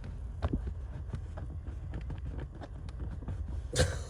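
Handling noise from tucking an LED strip light's wire under a car seat and trim: scattered light clicks and knocks, with a louder rustling scrape near the end, over a steady low rumble.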